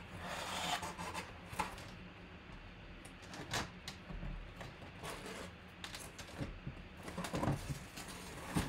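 Cardboard rubbing and scraping in a series of short strokes as a large flat cardboard photo box is handled and opened.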